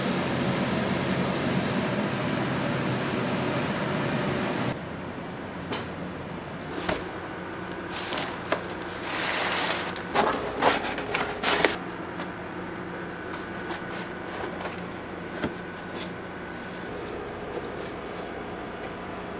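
Steady street background noise for about the first five seconds, then a quieter room with a cardboard apple box being opened: a rustle of its thin plastic liner about halfway through, followed by several sharp knocks and clicks of the cardboard flaps being handled.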